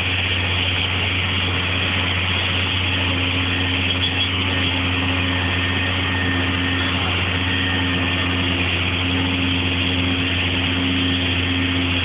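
Heavy farm diesel engine running steadily at constant speed, a loud unbroken drone with a strong low hum.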